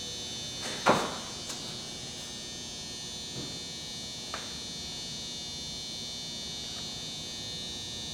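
A steady, high-pitched electrical buzz made of several held tones, with one sharp knock about a second in and a few faint clicks after.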